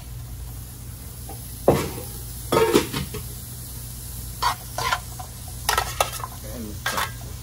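Metal tongs tossing sliced onions, mushrooms and garlic in a frying pan, clinking and scraping against the pan several times, over a light sizzle of the vegetables sautéing.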